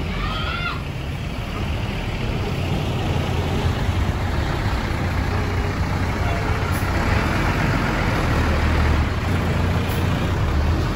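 A large bus's engine rumble and tyre noise passing on the road, growing steadily louder.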